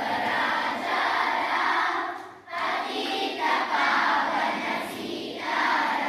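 A group of voices singing together in unison, in phrases, with a short break about two and a half seconds in.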